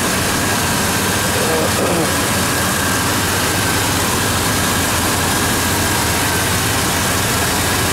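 Freshly installed Chevy 4.3-litre V6 engine idling steadily, heard close at the open engine bay, running smoothly. A thin steady high tone sits over the idle throughout.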